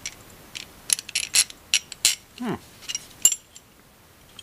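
Steel starter bolts clinking against one another in gloved hands as they are sorted and gathered: about ten sharp, ringing metallic clinks at an irregular pace.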